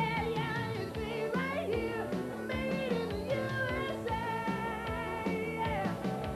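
Upbeat rock song with guitar, a steady drum beat and a singing voice.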